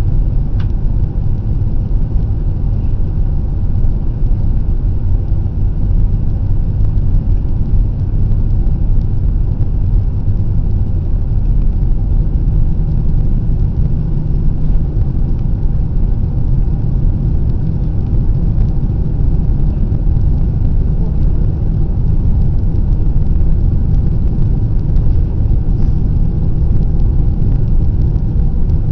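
Airliner cabin noise: a steady low rumble of the engines and rushing air, heard from inside the passenger cabin.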